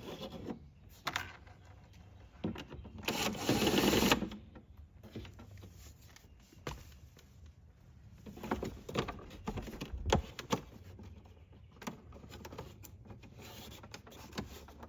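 Screws being taken out of a plastic interior trim panel: scattered clicks, scrapes and knocks of the screwdriver and panel. A louder, rougher burst lasts about a second starting around three seconds in, and a sharper knock comes near ten seconds.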